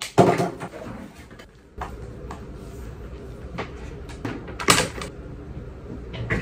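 Rummaging at a desk: scattered knocks and clicks of objects being moved and handled as someone searches for a phone. The loudest knocks come right at the start and a little under five seconds in.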